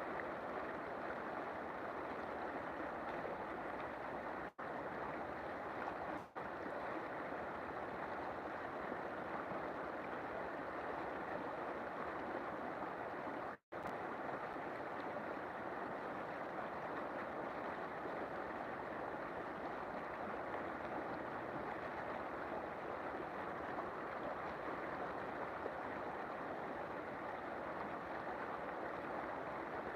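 River water flowing in a steady, even rush, with a few split-second dropouts where the sound cuts out almost completely.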